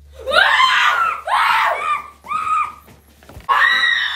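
Young boys screaming, four high-pitched screams in a row, the last after a short break.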